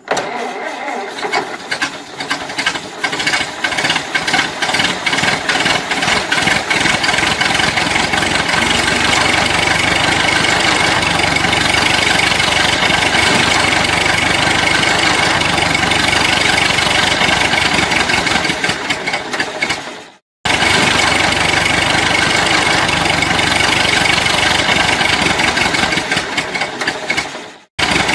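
Old truck engine being started: uneven, knocking strokes in the first seconds as it catches, then running steadily. The sound drops out twice, briefly, about two-thirds of the way through and again near the end, then comes straight back.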